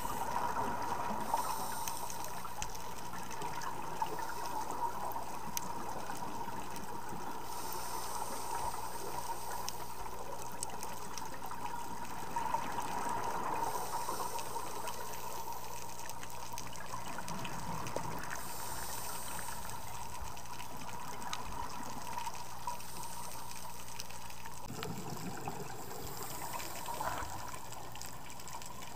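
Underwater sound of a scuba dive heard through the camera's housing: a steady, muffled water rush, with bubbly hissing surges from divers' exhaled regulator breaths every eight to ten seconds.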